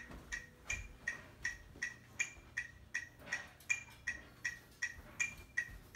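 Steady, quick ticking, about three ticks a second, each tick with a slight ring, going on evenly like a clock's tick-tock.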